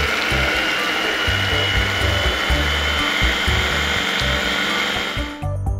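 Small electric food chopper motor running steadily, grinding shallots, garlic and candlenuts into a spice paste; its whine rises slightly in pitch, then cuts off about five seconds in.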